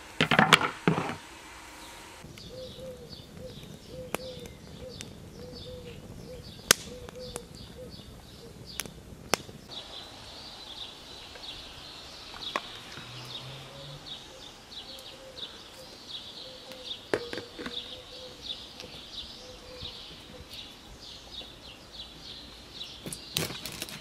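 Birds chirping in quick repeated notes, with scattered sharp clicks and knocks and a brief louder clatter in the first second.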